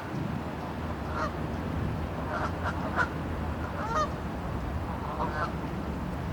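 A flock of birds calling: short pitched calls every half second or so, several overlapping, over a steady low rumble.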